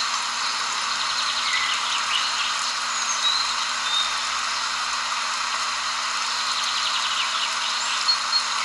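Nature ambience: a steady, even outdoor chorus, with short high chirps scattered through it.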